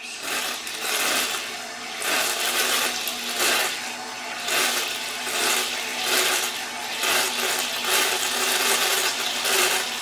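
Canister vacuum cleaner motor and impeller running submerged, with water just above the intake: the impeller churns the water into steady splashing and bubbling over a motor hum, swelling and easing every second or so.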